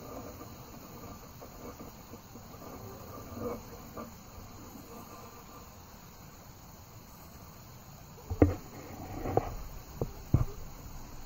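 Steady chirring of crickets and other field insects. About eight seconds in come a few sharp knocks and thumps, the first the loudest, then three more over the next two seconds.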